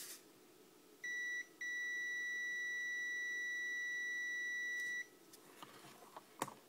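Digital multimeter's continuity beeper sounding as its probes touch a shorted filter capacitor: a short high beep about a second in, then after a brief break one steady beep of about three and a half seconds. The beep marks the capacitor as a dead short, the fault behind the TV's black screen.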